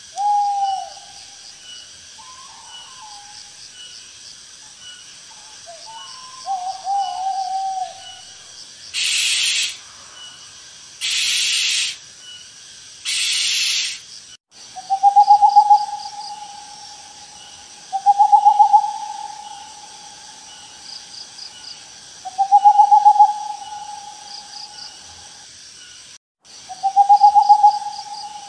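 Owl calls: a few short calls at first, then three harsh hissing screeches of about a second each, then four long drawn-out calls of two to three seconds each, a few seconds apart. A faint high chirping pulses steadily underneath.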